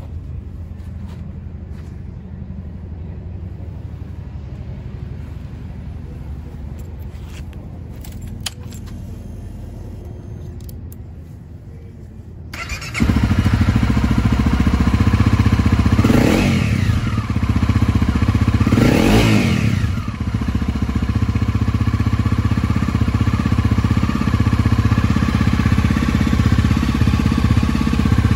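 2017 Honda CRF250 Rally's single-cylinder engine with a Yoshimura muffler starting about halfway through and settling to an idle, blipped twice a few seconds after it catches, each rev rising and falling. Before the start there is a low rumble with a few clicks.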